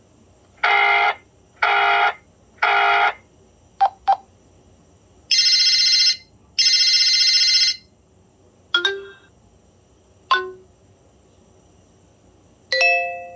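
BlackBerry Pearl 3G (9100) alert tones: a run of short electronic beeps and chimes with pauses between them. First three even beeps, then two quick blips, then two longer bright tones, then three single chimes, each fading out.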